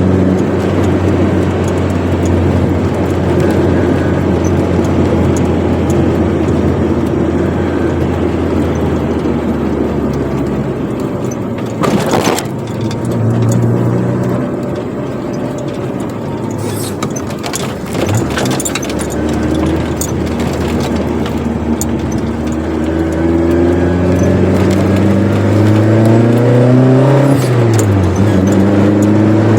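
Chevrolet Corsa Wind's four-cylinder engine with a sport exhaust, heard from inside the car while driving. The engine note eases off and runs lower through the middle with a sharp click and a few lighter knocks, then the revs climb steadily for a few seconds near the end, drop sharply at a gear change, and settle into a steady drone.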